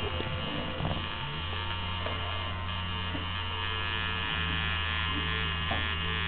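Tattoo machine buzzing steadily as it works ink into skin, its tone shifting slightly a couple of times.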